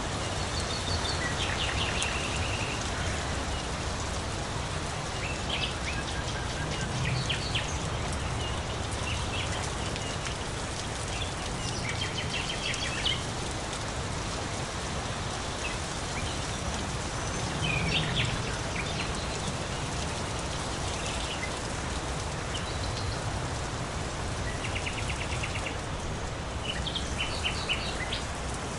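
Steady rain falling, with birds calling now and then over it in short runs of quick high chirps.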